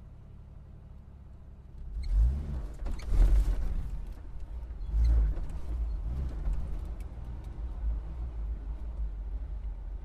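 Car engine idling, then about two seconds in it revs and the car pulls away, the engine note climbing in several surges before settling into steady running.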